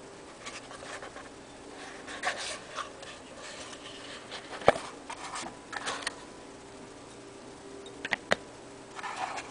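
A cardboard perfume box and its insert being handled: scattered rustles and light taps, with one sharper knock about halfway through and two quick clicks near the end.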